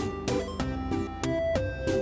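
Background music: an instrumental tune with quick, evenly spaced notes, about three a second.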